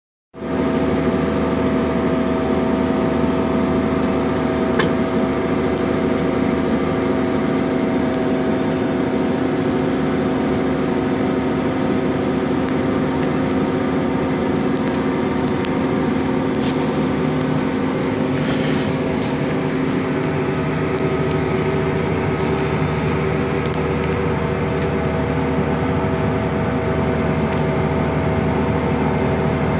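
New Holland T9040 tractor's diesel engine running steadily under load while pulling an air drill, heard from inside the cab as an even drone with several steady tones. A few brief clicks come here and there.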